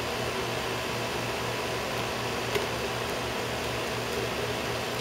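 Steady low hum and hiss of background machine noise, with one light click about halfway through.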